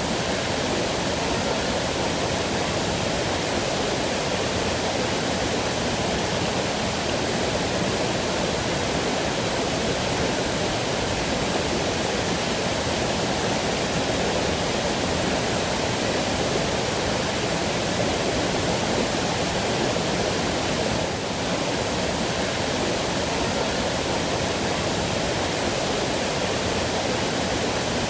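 Waterfall: a steady, unbroken rush of falling water, fullest in the lower-middle range, with one very brief slight dip about three-quarters of the way through.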